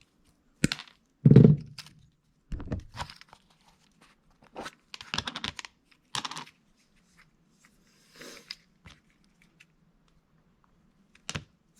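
Handling noises from small objects being worked on a bench: a string of short knocks, clicks and crinkling rustles, with one heavy thump about a second and a half in, over a faint steady low hum.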